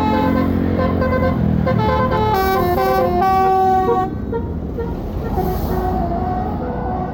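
Bus 'telolet' basuri multi-tone horn playing a stepped melody, ending on a longer held note and cutting off about four seconds in. Engine and traffic noise runs underneath.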